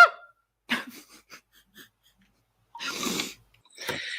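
A woman sneezing: a short, noisy, breathy burst about three seconds in, followed by a hissing breath.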